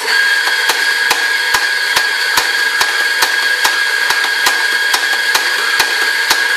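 Electric espresso grinder switched on and grinding coffee beans into a portafilter: a loud, steady motor whir with a whine, starting suddenly, with even clicks about two to three times a second.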